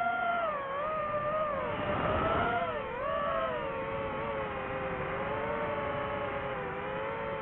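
DJI FPV drone's four brushless motors whining in flight, the pitch rising and falling with throttle changes over the first few seconds, then holding steadier and a little lower.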